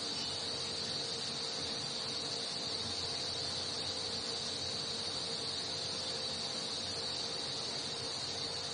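Steady high-pitched insect chirring, with a faint low hum beneath it.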